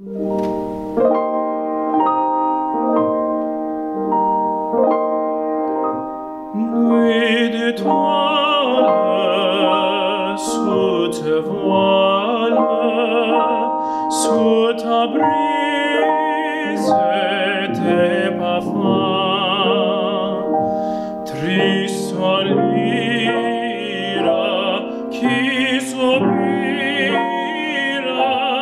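Grand piano playing a short introduction, then a tenor voice enters about seven seconds in, singing a classical art song with vibrato over the piano accompaniment.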